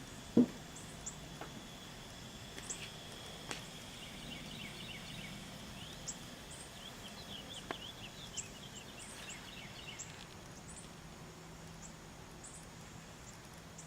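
Outdoor woodland ambience with birds chirping: many short, quick calls, busiest through the middle. A single sharp knock about half a second in, and a few faint ticks later.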